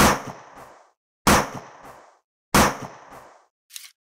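Three heavy sound-effect bangs, evenly spaced about 1.3 seconds apart, each dying away over about half a second, then a short, fainter crackle near the end.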